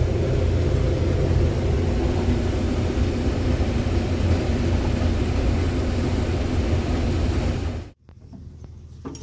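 Combine harvester running steadily, a loud low rumble. It cuts off suddenly about eight seconds in, leaving quieter sounds with a few faint clicks.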